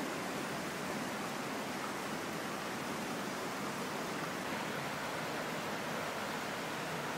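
Steady, even rush of running water in a cave where an underground stream comes back to the surface.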